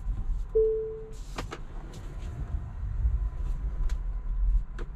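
Inside a Tesla Model 3 rolling slowly while parking: a low steady rumble, a short single-tone beep about half a second in, and a few sharp clicks.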